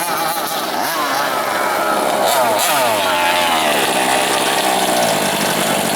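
Small two-stroke petrol engine of a large-scale FG RC monster truck revving up and down, its pitch rising and falling, then running at a steadier drone in the second half.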